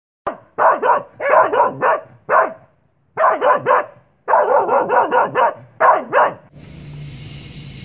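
A dog barking in quick runs of short barks for about six seconds, then steady road noise inside a moving car.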